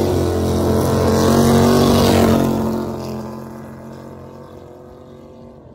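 Drag car engine running hard down the quarter-mile strip, steady in pitch and loud for about two and a half seconds, then fading away as the car draws off down the track.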